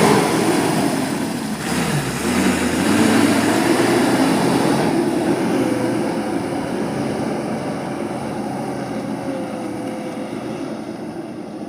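Heavy diesel engine running, with a short dip about two seconds in, then growing steadily fainter.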